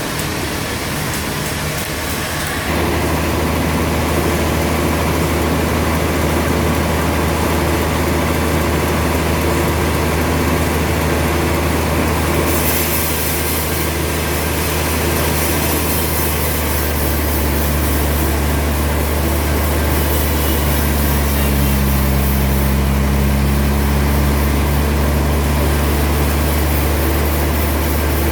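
Heavy sawmill machinery running with a steady low engine drone that deepens and grows louder about three seconds in; a higher hiss joins it about halfway through.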